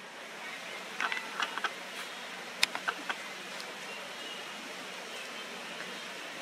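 Steady outdoor background hiss, broken by two short runs of sharp clicks, about a second in and again near the middle.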